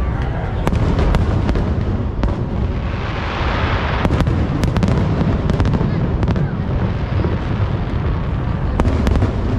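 Aerial fireworks going off: a continuous low rumble of booms with many sharp cracks and pops throughout, and a rushing hiss that swells and fades about three to four seconds in.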